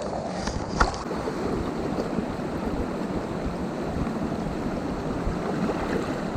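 Mountain stream water rushing steadily over rocks, with a couple of short clicks or knocks in the first second.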